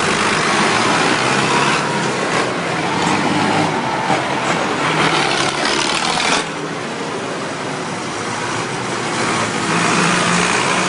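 Farm tractors' diesel engines running as a procession of tractors drives past one after another, one close by. The noise is loud for about six seconds, drops off abruptly, then swells again near the end as the next tractor comes by.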